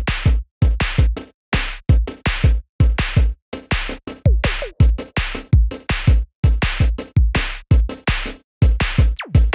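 Background music: an electronic beat with a heavy kick drum and sharp snare hits in a steady, chopped pattern.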